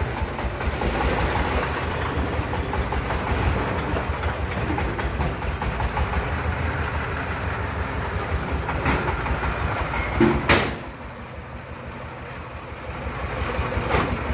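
Engine of a small three-wheeled dump truck running steadily with a fast rhythmic clatter as it drives slowly. About ten and a half seconds in there is a loud sharp knock, after which the engine sound drops for about two seconds and then comes back up.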